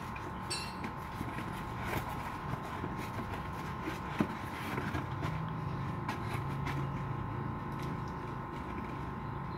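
Cardboard box flaps being opened and a new truck air filter element lifted out, with scattered light knocks and scrapes, over a steady background hum carrying a constant high-pitched tone.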